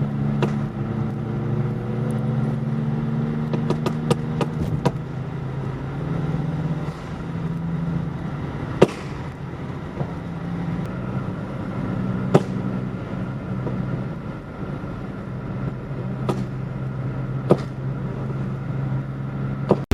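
Turbocharged 1.3-litre eight-valve four-cylinder of a 1989 VW Polo 86c running at idle, with sharp exhaust pops and bangs: a quick cluster about four seconds in, then single bangs every few seconds.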